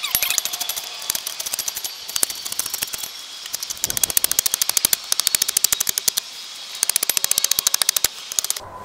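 A metal hand-tool blade cutting and rasping along a fallen wooden branch to trim it. It goes in fast strokes, many clicks a second, in two long runs with sparser strokes between, and stops a little before the end.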